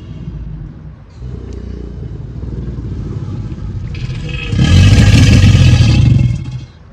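Deep, rumbling growl-like bellow presented as the call of the extinct giant caiman Purussaurus brasiliensis, a reconstructed sound since no recording of the animal can exist. It swells to a much louder, rougher stretch about four and a half seconds in, then falls away shortly before the end.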